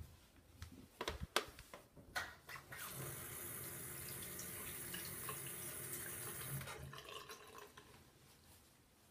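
Water running steadily for about four seconds, starting and stopping abruptly, after a few sharp knocks.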